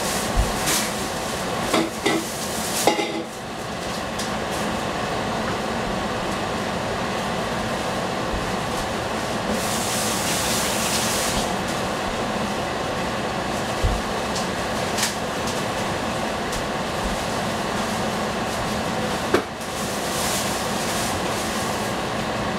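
Vegetables sizzling in a covered stainless steel pan on a gas burner: a steady hiss, with a few light clicks in the first seconds and a brief louder hiss about ten seconds in.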